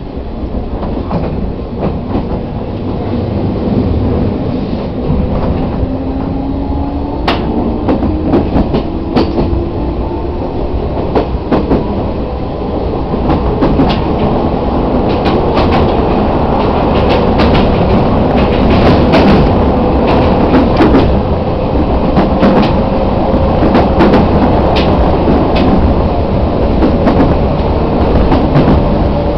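Chichibu Railway 1000 series electric train, a former JNR 101 series, heard from inside the car as it picks up speed. The traction-motor whine rises in pitch and then holds steady, over a growing running rumble and irregular clacks of the wheels over rail joints.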